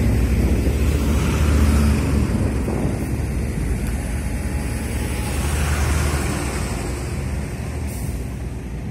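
Heavy vehicle engine running with a steady low rumble, loudest in the first couple of seconds, among road-traffic noise.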